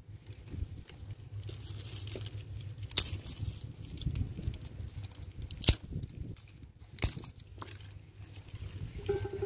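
Dry twigs and thin branches being handled and pushed in under a cast-iron griddle: rustling and scraping of sticks on dry ground, with three sharp cracks of wood.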